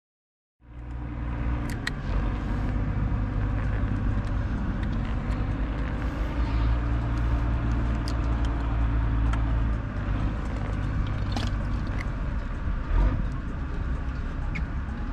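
Steady low drone of an engine running, with a few faint ticks over it.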